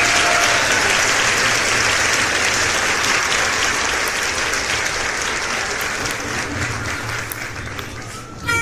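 Crowd applauding and cheering, a dense clapping noise that slowly fades away.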